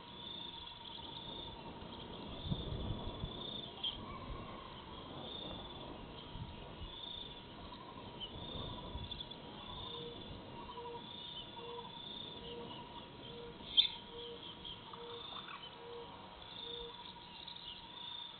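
Evening outdoor wildlife ambience: a high chirp repeats about every half second throughout, and from about ten seconds in a bird gives a run of about a dozen low, evenly spaced hoots. A single sharp click comes just before the hoots end.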